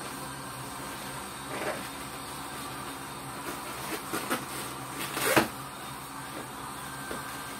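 Balloons being handled: a latex twisting balloon rubbed and pulled while it is tied around a foil number balloon, giving a few short rustles, the loudest about five seconds in, over a steady low room hum.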